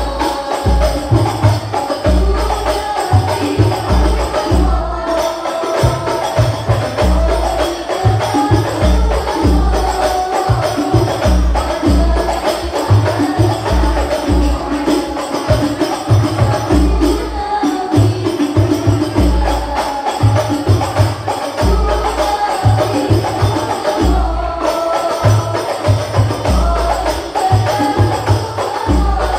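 Al-Banjari hadrah ensemble performing sholawat: a group of young women sing a melody into microphones over interlocking frame-drum (terbang) patterns, with deep bass drum strokes several times a second.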